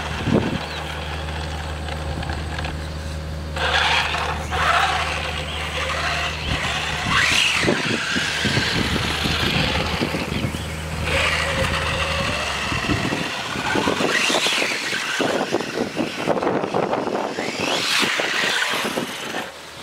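A 1/10-scale RC car's motor and gears whine as it speeds past on asphalt, with tyre noise, in about five passes. Each pass swells and rises in pitch, then fades and falls away.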